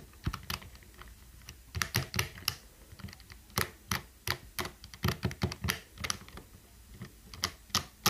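Bare red-stem mechanical keyboard switches, keycaps removed, clicked and flicked rapidly by finger, giving irregular sharp plastic clicks in quick clusters, sparse at first and denser after about a second and a half. The switches are wet with rubbing alcohol and are being worked to loosen dirt that keeps them from registering.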